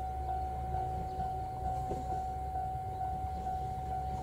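JR Shikoku 2000-series diesel express railcar rumbling low as it rolls slowly into the station. A level crossing alarm rings steadily over it at just under two beats a second.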